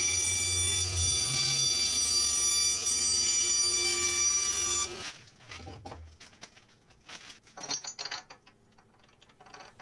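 Vertical bandsaw running and cutting a block of wood, a steady whine that cuts off abruptly about five seconds in. After that come a few quiet clinks and taps of steel parts being handled.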